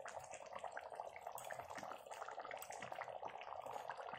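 Paneer curry gravy simmering in a kadai on the stove: faint bubbling with many small irregular pops over a steady hiss.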